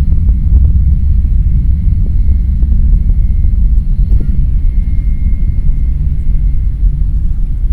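Rocket launch heard from across the Cape: the engines' deep, steady low rumble.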